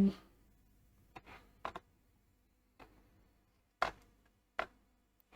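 Several brief, sharp clicks at irregular intervals, typical of a computer mouse being clicked through software setup screens, with a gap of about two seconds in the middle.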